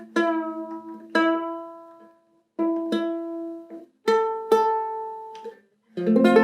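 Guitalele strings plucked about six times, a note or chord at a time, each left to ring and fade, as the six-string half-size guitar is tuned by ear.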